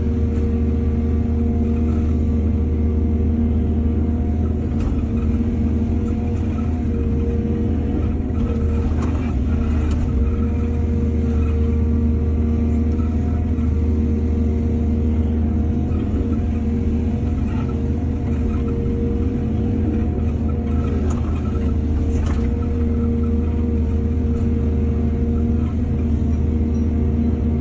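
Hydraulic excavator's diesel engine running steadily, a deep hum with steady higher tones over it, with a few faint knocks.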